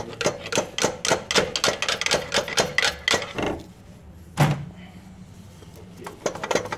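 Hand socket ratchet clicking in a quick, even rhythm, about five clicks a second, while a bolt on the alternator mounting is worked. The clicking pauses for one louder knock about four and a half seconds in and starts again near the end.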